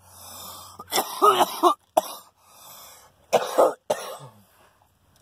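A man's coughing fit after a hit of cannabis: about a second of breathy exhaling, then several bouts of harsh coughs, muffled into his sleeve.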